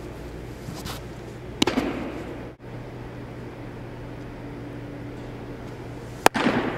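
Two sharp pops of a pitched baseball smacking into a catcher's leather mitt, about four and a half seconds apart, each ringing briefly around a large indoor hall, over a steady low hum.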